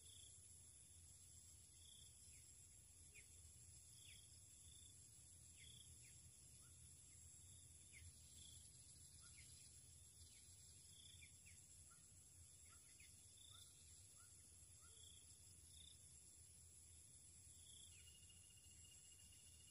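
Near silence: faint rural ambience of a steady high-pitched insect drone, with short downward-sliding chirps repeating every second or two.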